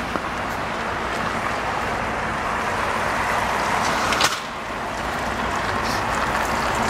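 City road traffic passing: steady tyre and engine noise of cars going by, with one short sharp knock about four seconds in.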